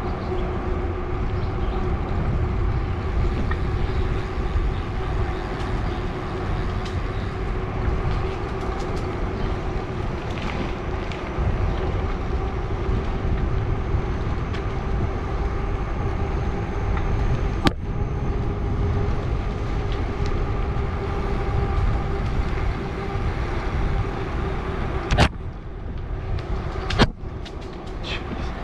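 Riding an e-bike on a paved trail: a steady rush of wind and tyre noise with a constant hum from the bike's electric hub motor. There are three sharp knocks, one about two-thirds of the way in and two close together near the end.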